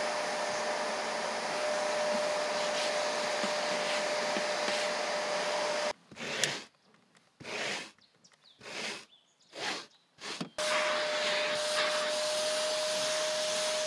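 Shark vacuum cleaner running steadily with a thin steady whine as it sucks dog hair from the truck's floor carpet. It cuts out about six seconds in, and a handful of short scraping strokes follow, a rubber pet-hair brush raked across the carpet. The vacuum starts again about ten seconds in.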